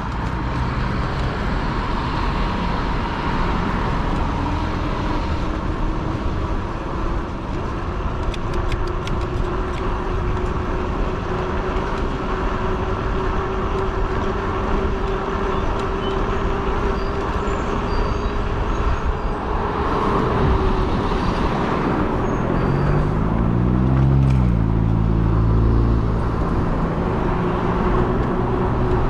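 Riding a fat-tire e-bike on a street: wind on the microphone and tire noise throughout, with a steady motor whine that climbs slightly in pitch and stops about two-thirds of the way through. Near the end a passing motor vehicle's engine rises in pitch.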